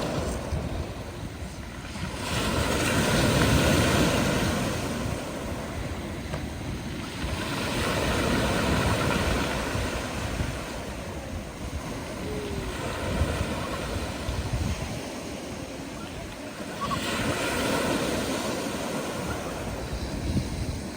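Black Sea surf breaking on the shore, the rush of each wave swelling and fading about every five seconds.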